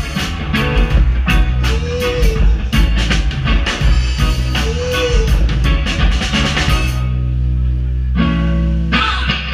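Live rock band playing with drum kit, electric guitar and keyboards. About seven seconds in, the drums stop for a couple of seconds, leaving held low notes, then the band comes back in near the end.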